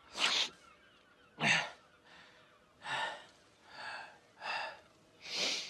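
A man's ragged gasping breaths, six of them about a second apart, as he lies hurt and winded after a beating.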